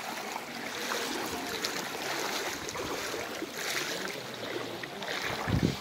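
Mahanadi river floodwater flowing past in a steady rushing wash, with a low thump near the end.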